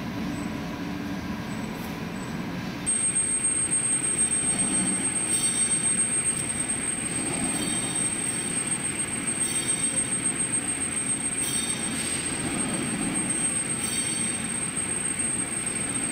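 Metal lathe running while machining a bronze bushing, with a steady high-pitched squeal that starts about three seconds in and holds.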